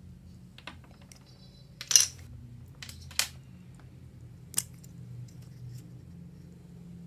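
A few sharp clicks and clatters of small hard objects being handled. The loudest comes about two seconds in and two more follow over the next few seconds, over a steady low hum.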